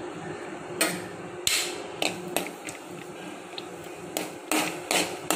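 A ladle scraping and knocking against a metal kadai while stirring cashews frying in ghee: about eight sharp, irregular scrapes and clinks.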